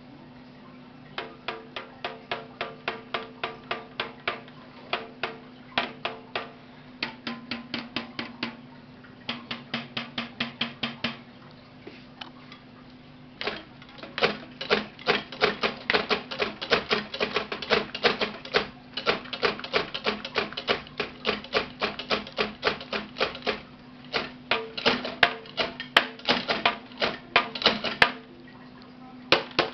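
Drumsticks tapping on the mesh heads of a homemade electronic drum kit with its sound module switched off, so only the dry acoustic taps of stick on mesh are heard. They come in fast rolls and fills, broken by short pauses, the densest and loudest run in the second half. A faint steady hum sits underneath.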